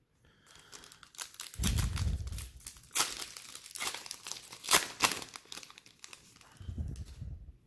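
Foil wrapper of a Panini Prizm basketball card pack being torn open and crinkled by hand: irregular crackling with a few sharper tearing snaps.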